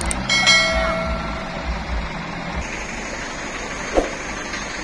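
Loaded palm-fruit truck's diesel engine working with a pulsing low rumble, overlaid from about half a second in by a short chiming sound effect for about a second. After about two and a half seconds the engine sound gives way to a steadier, quieter background with a faint high hiss, and a single knock comes near the end.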